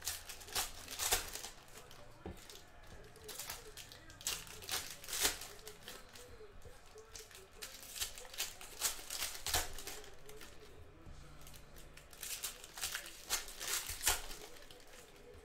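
Foil trading-card pack wrappers being torn open and crinkled by hand, in short bursts of rustle over and over.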